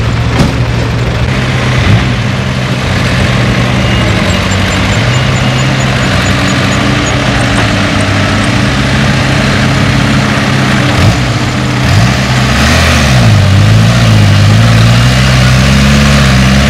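Small dump trucks' engines running in low gear as the trucks pull through a rutted, muddy track. The engine note dips and then climbs again about thirteen seconds in.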